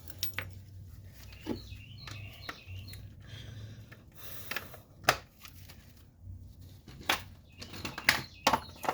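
Scattered clicks and knocks of metal tools being handled, a few seconds apart and sharper toward the end, over a low steady hum.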